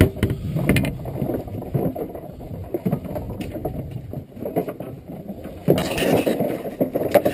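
Low rumble aboard a small fishing boat, with scattered knocks as a cod is gaffed and handled at the side, and a louder rushing burst near the end.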